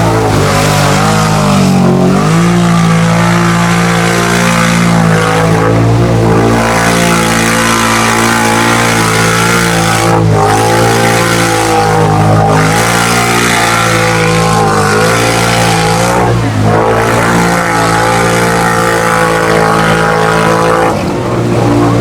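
ATV engine revving hard under load while churning through a mud bog hole, held at high revs with its pitch dipping briefly several times as the throttle is let off and opened again.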